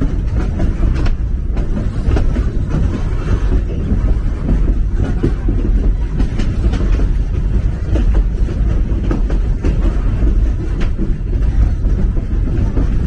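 Narrow-gauge railroad cars rolling along the track, heard from on board: a steady low rumble of wheels on rails with a few faint clicks.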